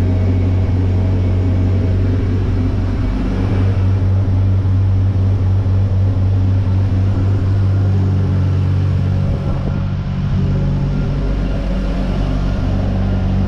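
Steady low mechanical drone with a constant pitch and no revving, from the machinery running in a chassis dyno room.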